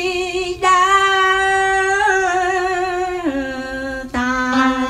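A woman singing a slow Vietnamese ballad, holding one long note with a light vibrato that steps down in pitch about three seconds in; after a brief break a new held note begins near the end.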